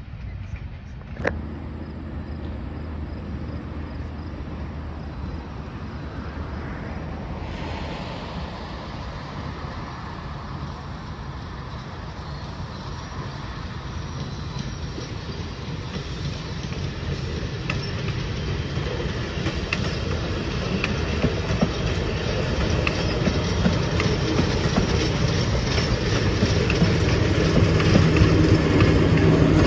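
Diesel-hauled passenger train approaching and passing close by: a steady low engine drone under wheel-on-rail noise, growing louder through the second half, with clickety-clack from the coaches' wheels as they roll past. A single sharp click about a second in.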